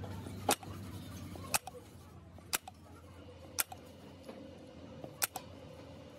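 Sharp metal clicks, about one a second with a quick pair near the end, from the gland and piston of an excavator hydraulic cylinder being handled on its chrome rod.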